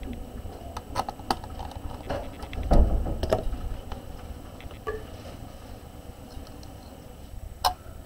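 Scattered small clicks and knocks of a screwdriver and small parts being handled on a work surface, with a heavier low thump about three seconds in and a sharp click near the end.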